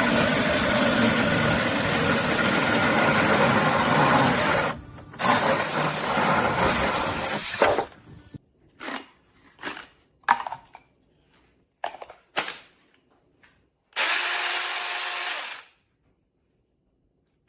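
Tomyvic 21-volt cordless mini chainsaw with a 6-inch bar running in two long runs with a short break between them. Then come several short trigger blips and one last run of about two seconds before it stops.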